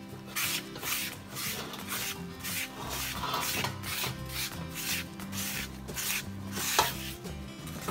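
Stiff brush being swept back and forth over a dry aluminium pan, scrubbing off leftover flour in quick scratchy strokes, about three a second. Soft background music plays underneath.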